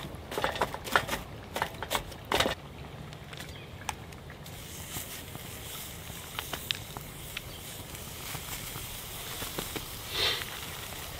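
Small wood fire crackling in a folding steel grill's fire box, with a quick run of sharp knocks and crackles in the first couple of seconds as a stick is worked among the burning wood. After that a steady hiss with scattered small pops, and a brief louder hiss about ten seconds in.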